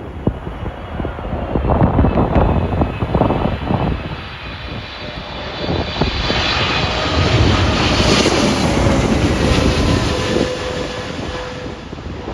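Jet airliner passing low overhead on final approach, its engine whine building to a peak about two-thirds of the way through with a slowly falling pitch, then fading. Gusty wind buffets the microphone in the first few seconds.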